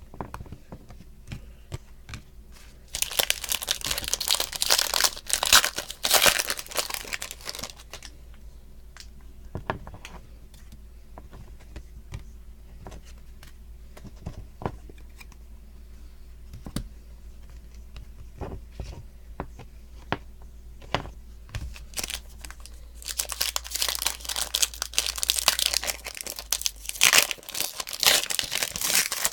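Foil wrappers of Panini Certified hockey card packs being torn open and crinkled, in two long spells of loud rustling, with short light clicks of cards being handled in between.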